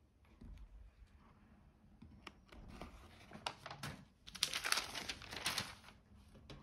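Crinkling and rustling as a doll's outfit is handled and pulled onto a Barbie doll, with a few light clicks. It builds from about two and a half seconds in and is loudest around the fifth second, then dies down.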